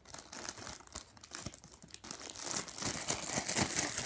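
Clear plastic zip-top bag crinkling and rustling as it is handled and pulled open, louder in the second half.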